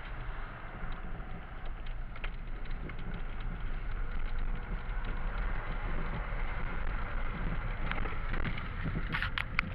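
Car driving slowly across a wooden plank bridge, heard from inside the cabin: a steady low rumble of tyres on the planks and the engine, with a few sharp clicks, most of them in the last second or two.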